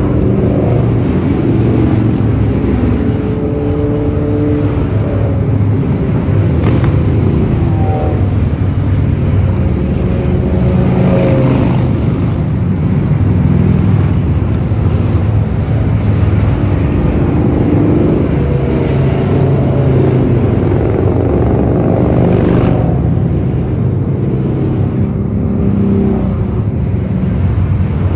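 A column of motorcycles riding past one after another, their engines running loud, rising and falling in pitch as each goes by.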